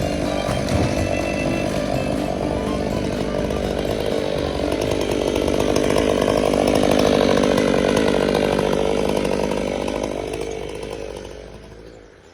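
Chainsaw running at high revs, steady and loud, fading away over the last couple of seconds.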